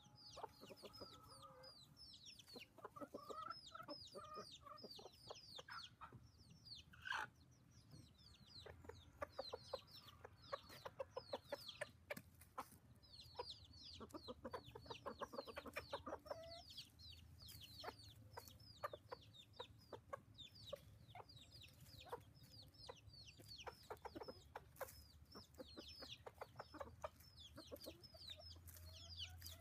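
Chicks peeping constantly in short, high, downward-sliding peeps, with hens and a rooster clucking among them while the flock feeds. Bursts of rapid low clucking come near the middle, the rooster's tidbitting food call to the hens.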